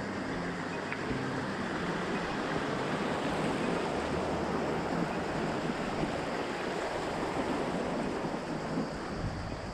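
Shallow river rapids rushing and splashing around an inflatable kayak as it runs through a rocky riffle, loudest in the middle and easing slightly toward the end, with some wind on the microphone.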